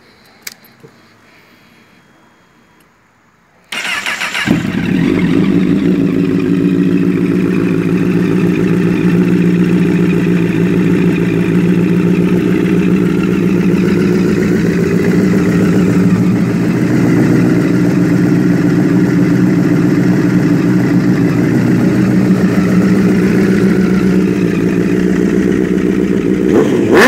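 Honda CBR1000RR inline-four engine with an aftermarket sport exhaust, started about four seconds in and then idling steadily with a strong, loud exhaust rumble; the throttle starts being revved right at the end. Before the start there is only low background noise and a click.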